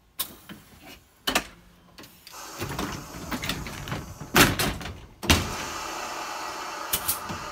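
Compressed air hissing in the cab of vintage Montreal streetcar 2001, building about two seconds in and then holding steady, with several sharp metal clunks from the controls as the car's air equipment is worked.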